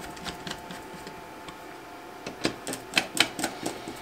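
A screwdriver snugging up a screw on a Milescraft track saw guide plate fitted to a circular saw. There are a few light clicks, then a quick run of sharp clicks and taps about two seconds in.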